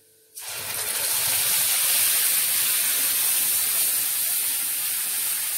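Wet onion, garlic and ginger paste dropped into hot oil in a kadai, sizzling loudly; the hiss starts suddenly about half a second in and stays steady.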